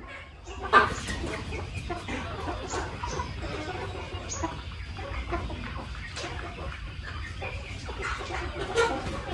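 A flock of chickens, hens and roosters, clucking and calling while they peck and forage, with a louder call about a second in and another near the end.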